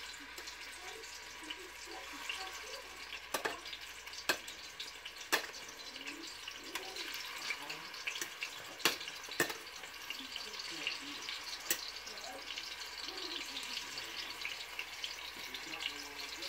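Chicken pieces frying in shallow hot oil in a cast iron skillet: a steady sizzle with half a dozen sharp pops and clicks scattered through it.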